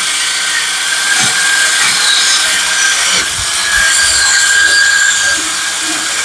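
Drill spinning a wire wheel brush against a lawnmower blade, scrubbing off grime and rust: a steady high motor whine over a harsh, continuous scratching.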